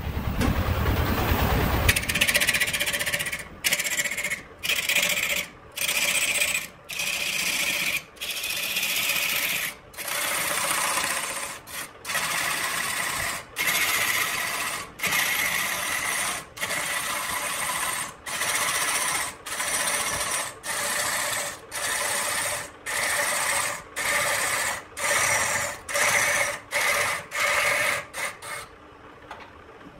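A turning gouge shaving a spinning red-wood blank on a wood lathe, in a run of about twenty rasping cuts roughly a second apart. A low rumble comes first. The cutting stops abruptly near the end, leaving only a faint hum from the lathe.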